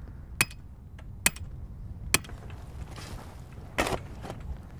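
An axe's back end hammering a steel stake into hard ground: three sharp metallic strikes about a second apart. Near the end comes a longer, rougher scrape of a shovel digging into dirt.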